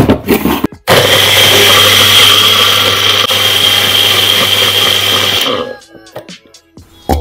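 Personal bullet-style blender motor running with a steady high whine, grinding fried brown onions and yogurt into a smooth onion paste. It starts about a second in after a few knocks as the cup is handled on the base, and cuts off after about five and a half seconds.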